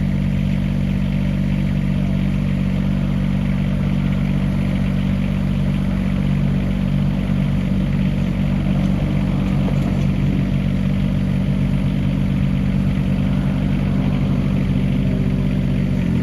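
Kubota diesel engine of an AGT QK18K-C mini excavator running steadily.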